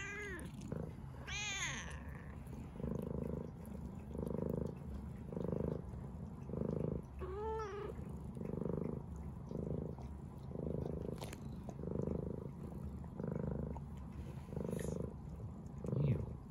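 Brown tabby cat purring steadily as it is stroked, the purr swelling and easing about once a second with each breath. A short high meow comes about a second and a half in, and another brief meow near the middle.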